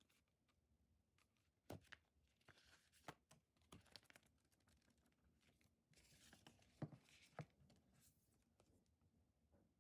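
Faint tearing and crinkling of packaging being opened by hand, with a few sharp clicks and taps.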